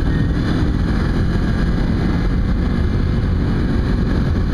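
Kawasaki Ninja 250's parallel-twin engine running steadily while riding at cruising speed, mixed with wind noise on the microphone.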